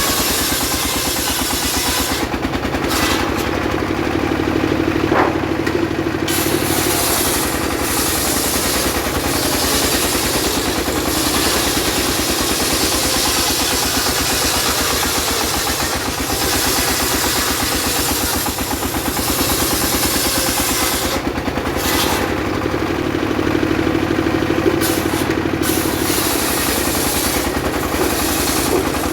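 Engine-driven mobile circular sawmill running steadily while cutting sengon wood. The engine drives the saw blade without a break, and the sound changes for a few seconds twice, about two seconds in and again about twenty-one seconds in.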